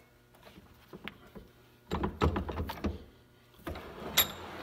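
Knocks and clatter of objects being handled on a workbench as a gloved hand reaches among tools and a spray can, with one short metallic clink about four seconds in.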